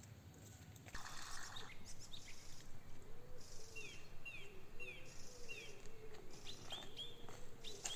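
Small birds chirping outdoors: a run of short, repeated down-slurred notes, about two a second, midway through, with more chirps near the end.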